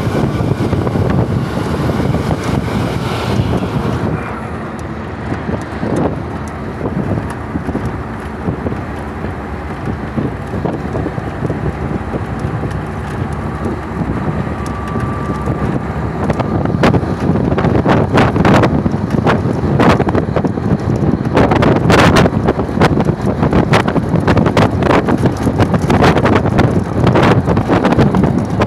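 Road and engine noise of a vehicle travelling at speed, heard at its side window, with wind buffeting the microphone. The buffeting turns into frequent sharp gusts and gets louder about halfway through.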